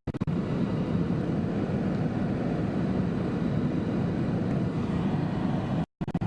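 Steady road and engine noise heard from inside a moving car, with a brief dropout to silence near the end.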